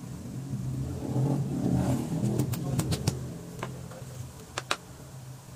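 A low, steady hum that swells for a couple of seconds and then eases off, with a cluster of sharp clicks as hands work vinyl upholstery over a chair seat.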